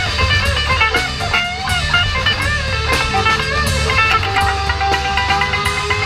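Live rock band playing: an electric guitar plays a lead line with string bends over bass guitar and drums, holding one long note in the second half.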